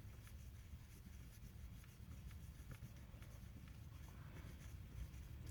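Faint, light scratching and rubbing from cleaning a small model-locomotive motor armature by hand at the bench.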